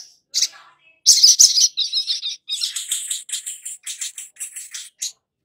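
Sunbird song: a fast run of high, sharp chirps, loudest in a burst just after a second in, then settling into a steady series of about four chirps a second.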